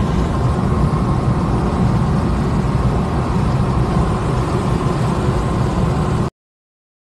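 Steady road and engine noise inside a moving car's cabin, heaviest in the low end, cutting off abruptly about six seconds in.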